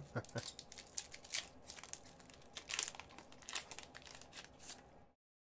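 Foil wrapper of a hockey card pack being torn open and crinkled by gloved hands: a run of quiet crackles and crinkles that cuts off abruptly about five seconds in.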